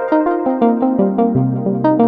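Novation Peak hybrid polyphonic synthesizer playing its factory preset 'Pluck Me': a quick run of short plucked notes, about five or six a second, over lower notes that ring on longer.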